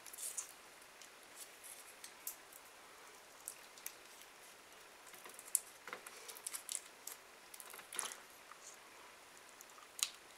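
Crinkly plastic wrapper of a small hard sour sweet being twisted open by hand: a scatter of faint, sharp crackles and clicks, busiest in the second half.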